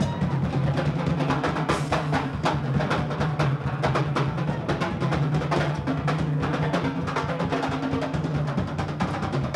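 A live drum kit and a second player's small hand-struck percussion drums playing together in fast, dense runs of hits. A steady low hum sits underneath.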